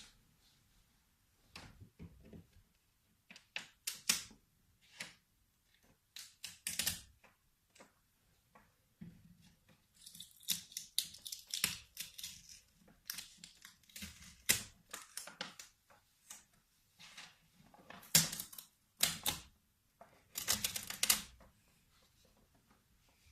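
Close-miked ASMR trigger sounds: hands rubbing and handling crinkly material in irregular bursts of crackly scratching, busiest about ten to thirteen seconds in and again near the end.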